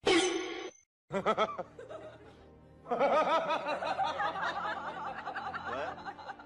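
Comic snickering laugh sound effect: a long run of rapid, wavering giggles over light music, after a short falling tone at the start.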